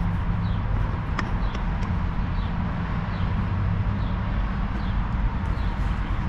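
Toro Z587L zero-turn mower's engine running steadily, with a single sharp click about a second in.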